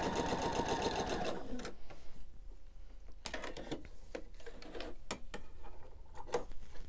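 Pfaff sewing machine stitching at a fast, even rate, stopping about a second and a half in. A few light clicks and rustles follow as the fabric is handled and threads are snipped with scissors.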